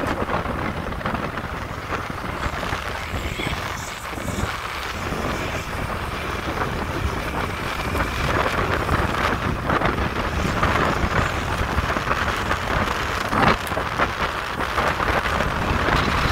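Steady wind noise on the microphone of a moving open vehicle, with a low rumble of engine and road noise underneath.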